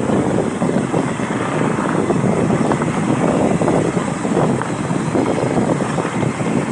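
Wind buffeting the microphone over a mountain bike rolling along a dirt single track, with many small clicks and rattles.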